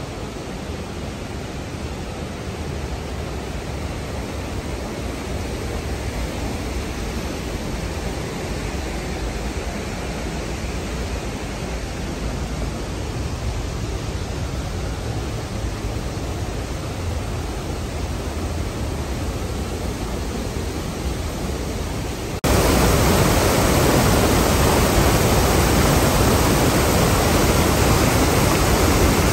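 Steady rushing water of a mountain stream, a constant even noise. About three-quarters of the way through it jumps suddenly louder and fuller.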